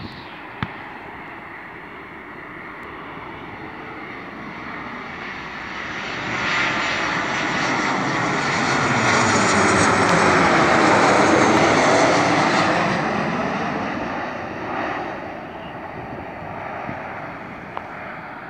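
Boeing 737-800's CFM56-7B turbofan engines at approach power as the airliner passes low overhead on final approach, gear down. The jet noise builds, is loudest about ten to twelve seconds in as the plane goes over, then fades as it heads away toward the runway.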